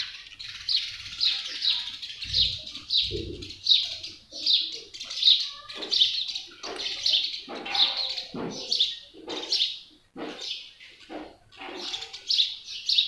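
House sparrows chirping: a steady string of short chirps, about two a second, with no break.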